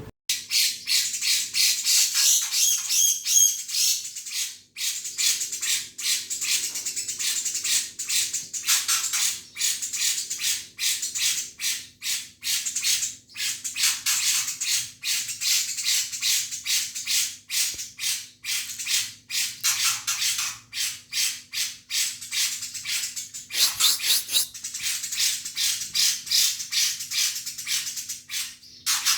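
A songbird chattering in a fast, unbroken run of short, harsh high notes, several a second, pausing only briefly twice.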